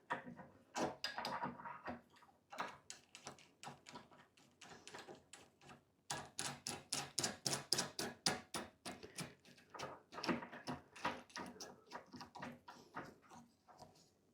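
Cabinet corner clamp being cinched tight on a melamine cabinet: a faint, uneven series of small clicks and knocks, settling into a steady run of quick clicks, about three or four a second, in the middle.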